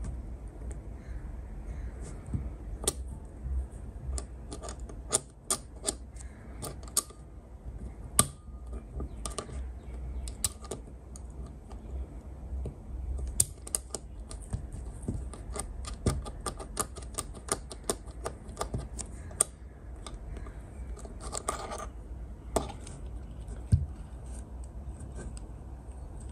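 Small irregular clicks and taps from a Sirui B-00K ball head as its quick-release clamp is worked by hand and the red safety-lock button pressed, with a quick run of clicks about three-quarters of the way through.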